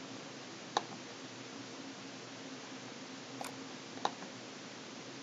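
Three sharp computer mouse clicks, the first about a second in and two close together near the end, over a faint steady hum and hiss.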